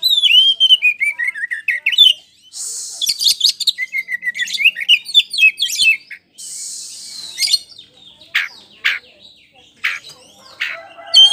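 Oriental magpie-robin (kacer) singing loudly: a rapid run of varied whistled notes and descending trills, broken twice by a harsh hissing rasp. After about eight seconds the song thins out into separate short notes.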